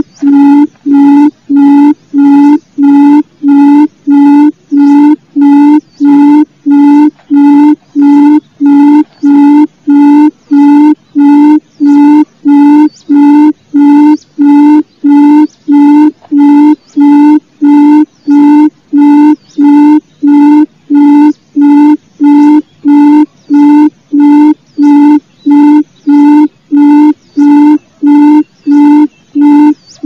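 Barred buttonquail (gemek) call: short low hoots repeated evenly, nearly two a second, played loud on a looped recording used as a lure for hunting the bird from a hide.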